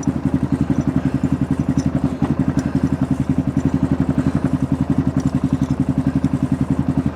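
Yamaha Rhino 660 side-by-side's single-cylinder engine idling, an even, rapid putter of about ten beats a second.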